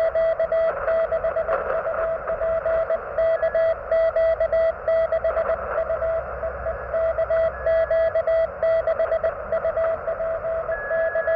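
Morse code (CW) heard on a QRP ham radio transceiver: a single steady tone keyed into fast dits and dahs over band hiss, with a fainter, higher-pitched signal coming in near the end. The operator takes it for a Parks on the Air station calling.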